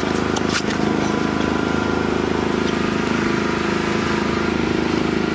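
Boat engine running steadily, an even low drone, with a few sharp clicks in the first second.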